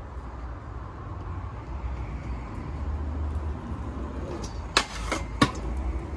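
Stunt scooter wheels rolling on asphalt, the rolling noise building as the scooter approaches. Near the end come two sharp knocks about half a second apart as the scooter strikes something.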